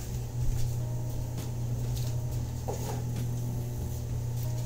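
Microwave oven running with a steady low hum, a few faint clicks and rustles over it.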